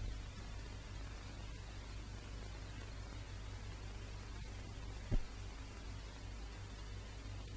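Steady low mains-type hum and hiss from an old film soundtrack, with no voice or music, and a single short thump about five seconds in.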